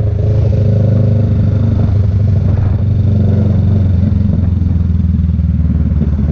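Motorcycle engine running at a steady, even pitch while riding at speed, heard from on the bike itself.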